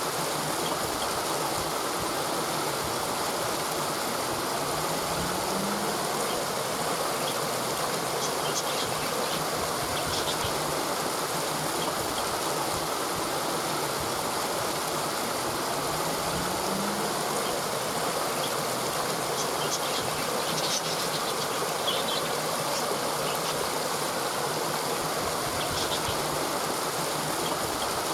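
Waterfall rushing steadily, an even wash of flowing-water noise, with a faint low rising hum twice, about five and seventeen seconds in.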